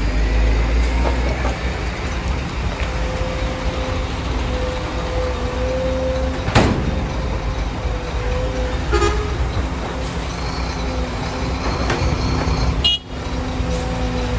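Diesel engines of heavy construction machinery, excavators and trucks, running steadily with a low rumble and a steady hum, and one sharp knock about six and a half seconds in.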